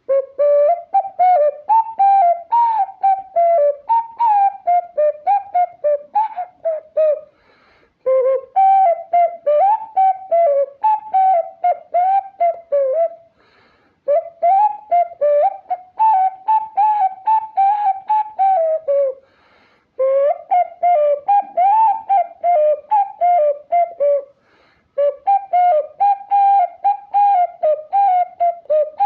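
Ocarina playing a melody in short, separately tongued notes. It comes in phrases of about five to six seconds, with brief pauses for breath between them.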